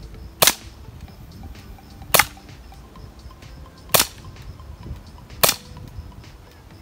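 BB gun firing four shots, sharp cracks about one and a half to two seconds apart.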